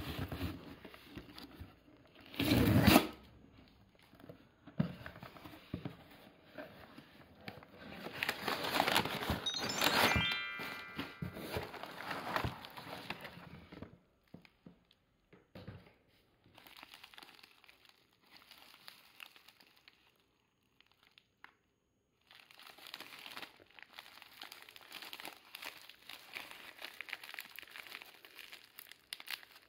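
Packing tape being ripped off a cardboard shipping box, with a loud tear about three seconds in and a longer stretch of tearing around eight to twelve seconds in. After a quiet pause, bubble wrap crinkling as it is unwrapped by hand.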